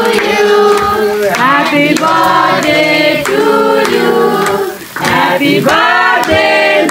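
Voices singing a birthday song together in chorus, for the birthday child at the cake-cutting, with a short break about five seconds in.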